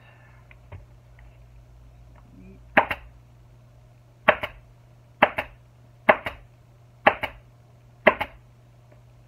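Pneumatic upholstery staple gun firing six times, about a second apart, driving staples through the vinyl seat cover into the motorcycle's plastic seat pan. Each shot is a sharp crack followed quickly by a smaller second snap.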